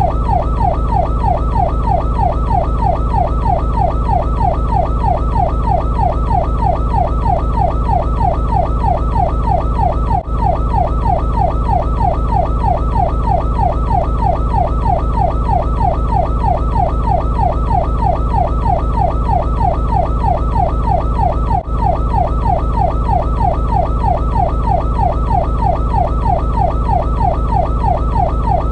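Fire truck's electronic siren on the yelp tone: a fast, evenly repeating up-and-down sweep, about three to four cycles a second, over a steady low rumble. It drops out briefly twice, about a third and three quarters of the way through.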